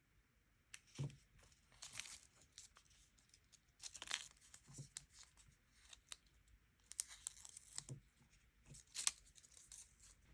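Quiet paper tearing and crinkling as stickers are handled for diary decorating: about four short rustling tears, with a few soft low taps between them.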